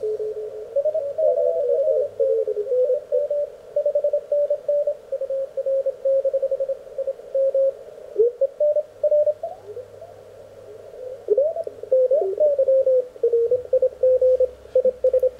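Morse code (CW) signals on the 30-metre band received through an Elecraft K1 transceiver: on-off keyed tones from several stations, sliding up and down in pitch as the tuning knob is turned across them. There is a short lull of band noise about ten seconds in.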